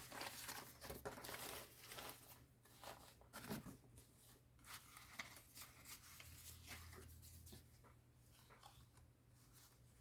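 Faint rustling and crinkling of paper being handled, with light taps, fading towards the end.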